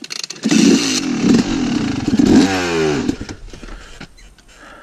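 Yamaha YZ250 two-stroke dirt bike engine revving hard as it pulls away, the pitch climbing about halfway through, then fading as the bike rides off.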